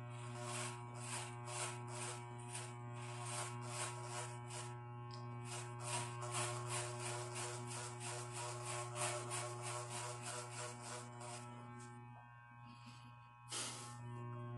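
Corded electric hair clipper buzzing steadily while cutting hair, the buzz easing for a moment near the end.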